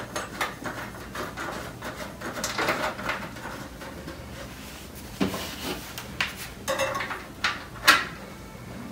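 Handling noises as a spool holder is fitted to the top of a 3D printer's metal frame and its thumb screws are turned by hand: scattered small clicks, knocks and rubbing, with a sharper knock a second before the end.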